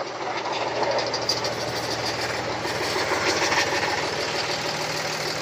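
An engine running steadily, a low hum under a dense, even hiss of outdoor noise.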